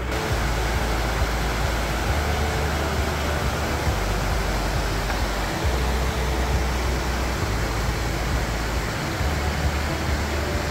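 Shallow river rushing over rocks and ice, a steady loud hiss, with a low rumble that swells and drops every second or two.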